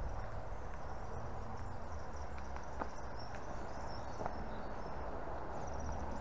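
Outdoor ambience: a steady low rumble with faint, high, short chirps scattered throughout, and a couple of light taps near the middle.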